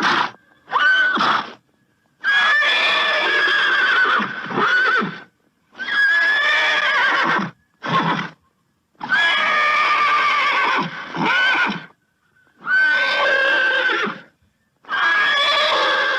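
A horse neighing again and again: a string of whinnies, each one to three seconds long with a quavering pitch, separated by short gaps of silence.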